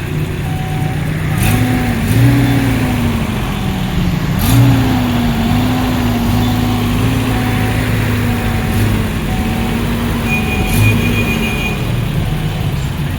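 A motor vehicle engine revs up twice and is held at raised speed, its pitch slowly sinking before it drops back near the end. A faint short beep repeats steadily under it.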